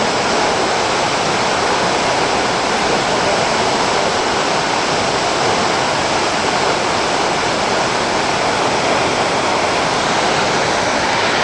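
Steady rush of a waterfall, falling water pouring without a break.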